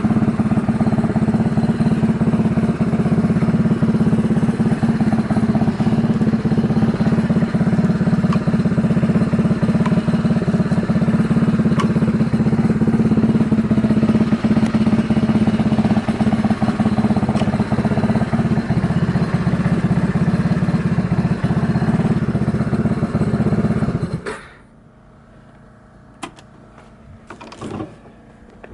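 Yamaha Majesty 250 scooter's single-cylinder four-stroke engine idling steadily with no abnormal noise, then switched off about 24 seconds in. A few small clicks and knocks follow in the quiet.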